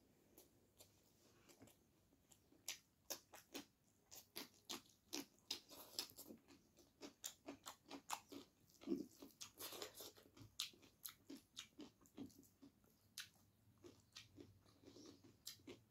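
Close-miked chewing and mouth sounds of a person eating rice with chicken curry by hand: an irregular run of short, soft wet clicks, several a second through the middle and fewer near the end.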